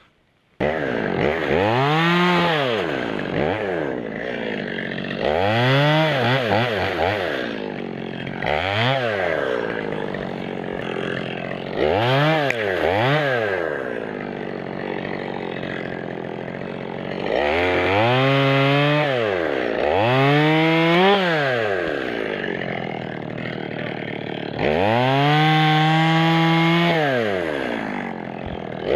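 Two-stroke chainsaw cutting birch wood, its engine revved up and let back down again and again, with two longer stretches held at high speed near the middle and near the end. The saw starts suddenly about half a second in.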